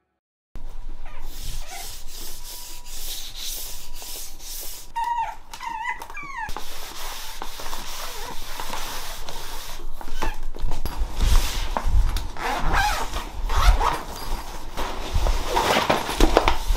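Jack Russell Terrier puppy whining for attention in high, bending cries, a quick run of them about five to six seconds in and more near the end, over rubbing and rustling handling noise.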